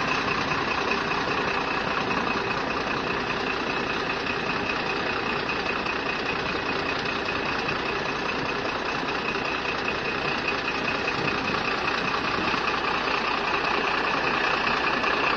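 Steady engine and road noise of a vehicle, heard from inside the cabin, with a faint constant high tone over it.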